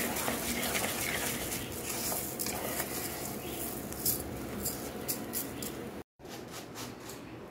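Kitchen clatter: utensils and pots clinking in short knocks over a steady hiss. The sound drops out abruptly for a moment about six seconds in, then returns quieter.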